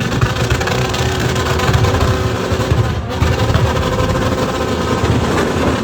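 Motorcycle engine running, with music in the background.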